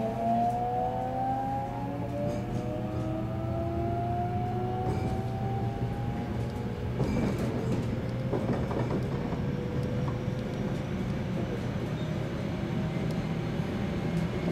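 Electric train's VVVF inverter and traction motors whining as the train accelerates: several tones rise slowly in pitch over a steady hum and the running noise on the rails. About halfway the whine fades and the sound turns rougher and noisier.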